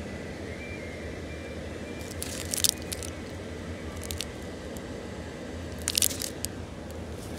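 Two short bursts of crunching, about three and a half seconds apart, over a steady low hum from the inflatable decorations' blower fans.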